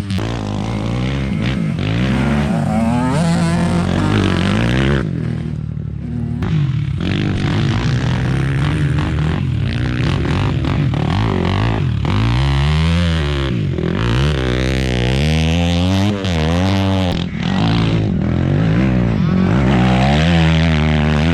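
Off-road dirt bike engine being ridden hard, its pitch rising and falling again and again as the throttle opens and shuts and the gears change, with brief drops in engine note about five seconds in and again near the middle.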